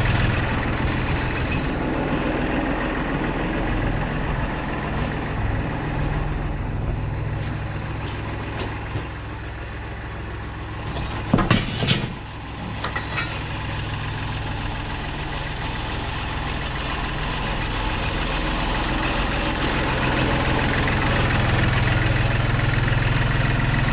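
John Deere backhoe tractor's engine idling, its level dipping through the middle and rising again toward the end. A cluster of sharp knocks comes about halfway through, with a couple more just after.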